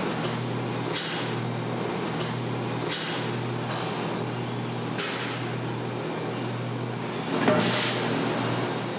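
Forging hammer pounding red-hot steel bar into plier halves over a steady machine hum. It strikes about every two seconds, with a much louder blow near the end.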